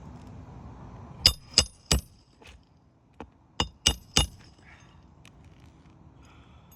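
Hammer striking a metal snake tool to drive a roofing nail under a shingle: two quick runs of three sharp, ringing metal strikes, with a lighter tap between them.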